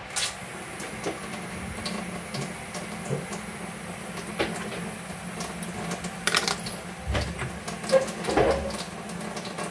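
Scattered clicks and knocks of kitchen things being handled and set down on a table, with a cluster of sharper clacks about six seconds in and a low bump against the table a little later.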